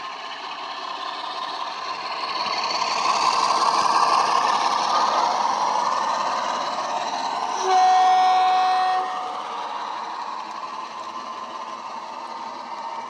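Model Class 47 locomotive's ESU hifi sound decoder playing diesel engine sound through its on-board speaker; it swells as the train passes. About eight seconds in, a horn sounds one steady blast lasting just over a second.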